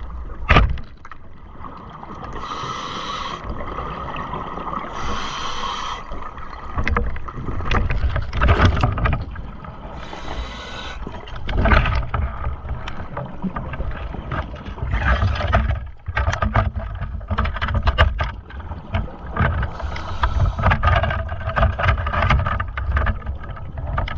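Underwater sound of a speargun firing, a single sharp crack about half a second in, as a hogfish is speared. It is followed by low rumbling and knocking while the speared fish is handled on the shaft, with several short bursts of hissing bubbles every few seconds.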